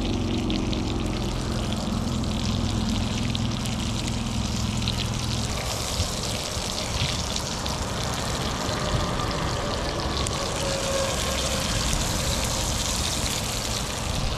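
Trout pieces sizzling and crackling in hot oil in a frying pan, a steady hiss. A low hum under it stops about five seconds in.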